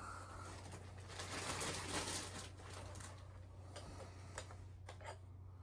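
Faint rustling and a few light clicks of hands handling a radio transmitter and its packaging, over a steady low hum.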